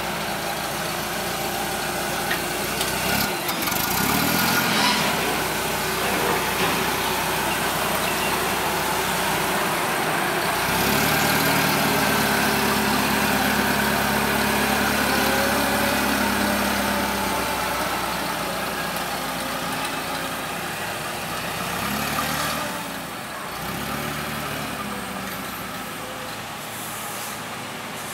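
Komatsu LPG forklift engine running as the truck drives with a load of concrete blocks. The engine speed rises and holds steady for several seconds past the middle, gives a couple of short revs near the end, and grows fainter as the forklift moves away.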